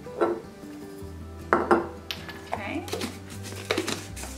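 Metal measuring spoon clinking and tapping against a glass mason jar while dried chopped onions are spooned in: a handful of sharp clinks, the loudest two close together about a second and a half in. Soft background music runs underneath.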